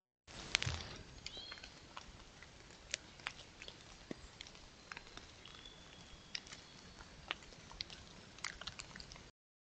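Faint outdoor ambience picked up by a trail camera's built-in microphone: a steady hiss with scattered small clicks and ticks and a few thin, high whistle-like tones. It cuts in just after the start and cuts off abruptly near the end.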